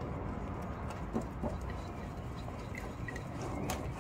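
Fingers mixing gram flour with water in a glass bowl: faint, sparse squishing with a few light clicks and a couple of small squeaks, over a steady low room hum.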